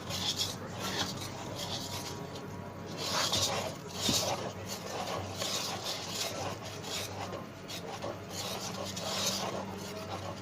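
A utensil mixing thick cake batter by hand in a bowl: repeated scraping, rubbing strokes as flour is worked in and the lumps are smoothed out.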